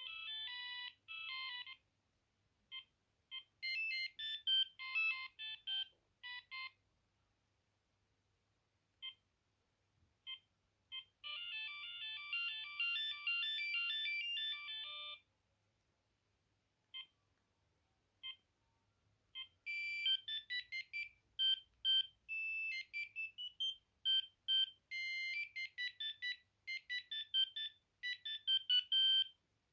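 Built-in monophonic ringtones of a Maxon MX-6869 mobile phone playing one after another through its small speaker: short beeping electronic tunes, some cut off after a note or two, with silent gaps and single beeps between them.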